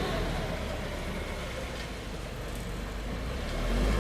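Low engine rumble of road vehicles, growing louder near the end.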